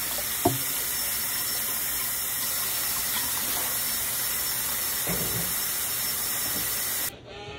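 Kitchen tap running steadily into the sink while dishes are washed, with a sharp clink of a dish about half a second in; the water cuts off suddenly near the end.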